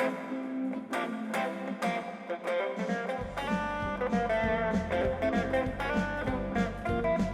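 Music: guitar played with plucked notes, and a deep bass part joining about three seconds in.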